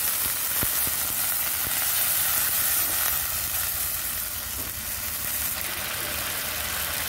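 Water just poured into hot oil and fried onions in an iron karahi, sizzling hard while a metal spatula stirs and taps the pan. After a few seconds the sizzle eases a little into a steady bubbling.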